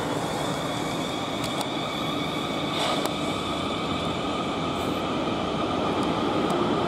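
South Western Railway electric multiple-unit trains at the station: a steady high electric whine of traction equipment over a constant rail rumble, with a few faint clicks.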